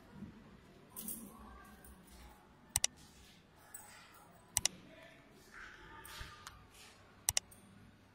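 Mouse-click sound effects: a quick double click, press and release, about every two to three seconds, over faint room noise.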